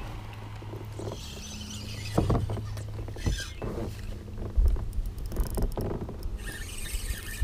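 Handling noise in a plastic fishing kayak: crinkling of a plastic bait package with several sharp knocks of gear against the hull.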